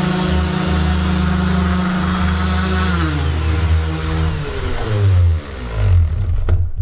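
Two Makita random orbital sanders, one corded and one cordless, running together on a plywood board with a steady hum. About three seconds in, one is switched off and its whine falls in pitch as it spins down, while the other keeps running with a few uneven knocks near the end.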